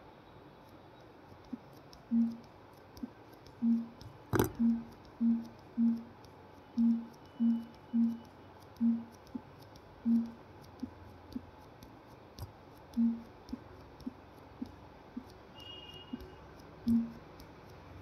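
Oppo Reno 8 5G's vibration motor buzzing in short low pulses, over a dozen at irregular intervals, each one the haptic confirmation of a finger touch as the in-display fingerprint sensor records a new fingerprint. A single sharp click about four seconds in, and faint ticks between the buzzes.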